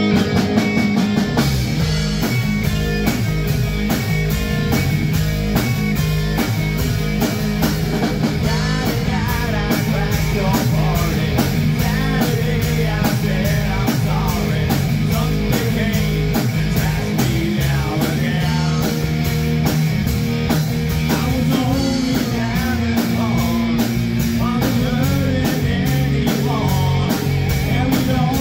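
Rock band playing live in rehearsal: a drum kit keeping a steady beat under electric guitars and bass, with vocals over the top.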